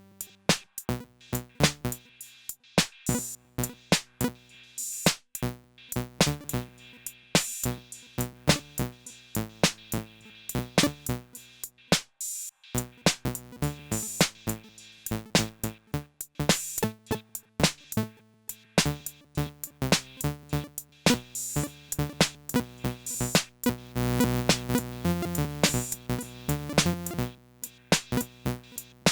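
Dave Smith (Sequential) Prophet 6 analog polyphonic synthesizer playing a preset's notes over a steady electronic beat from an Elektron Analog Rytm drum machine. A fuller, sustained low part comes in for several seconds in the second half.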